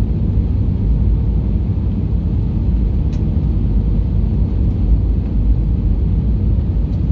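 Steady low rumble inside the cabin of an Airbus A320-232 on approach: its IAE V2500 turbofan engines and the airflow over the airframe, heard from a seat behind the wing.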